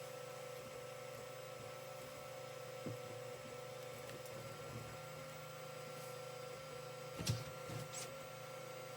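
Creality CR-10 3D printer running a print: a steady hum, with a soft knock about three seconds in and a louder cluster of knocks near the end.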